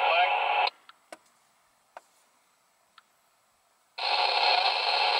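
Two-way radio transmissions heard through a scanner: two short bursts of band-limited static that start and cut off sharply, one at the start lasting under a second and one beginning about four seconds in, with a few faint clicks between them.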